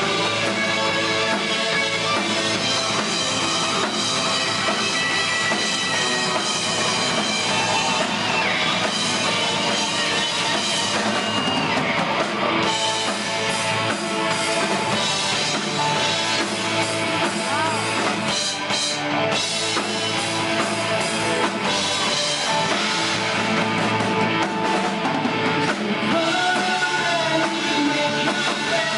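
Live rock band playing loud, with electric guitars and a drum kit, heard from among the audience.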